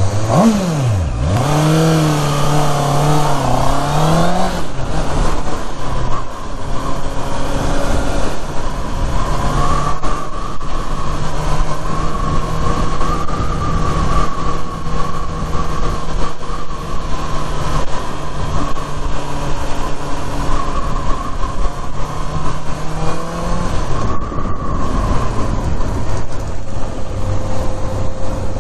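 Honda CBR650R's inline-four engine pulling the bike along a road: its pitch swoops down and climbs again in the first few seconds, holds fairly steady through most of the run, then drops about three-quarters of the way through as the bike slows, with a steady rush of wind noise over it.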